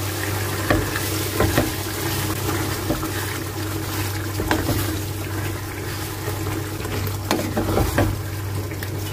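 Chicken pieces sizzling in a tomato sauce in a stainless steel pan while a wooden spoon stirs them, with scattered knocks of the spoon against the pan. A steady low hum runs underneath.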